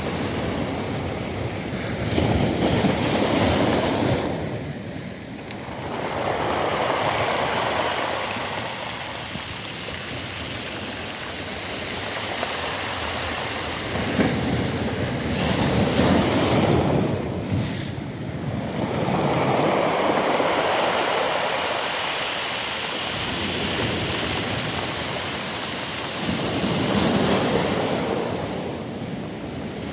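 Sea waves breaking on a pebble beach, several waves in turn. Each wash swells and fades over a few seconds.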